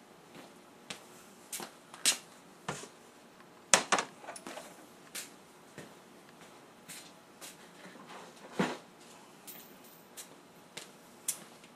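Irregular clicks and knocks of the metal parts of a disassembled air compressor pump being handled and set down on a table, with louder knocks about 2, 4 and 8.5 seconds in.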